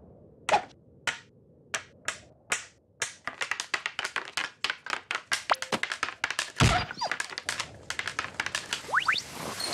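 Cartoon sound effects of wooden skis knocking and banging against a taxi as they are forced in: sharp knocks about twice a second that quicken to a rapid clatter after about three seconds, with one heavier thump about two-thirds through and a brief rising squeak near the end.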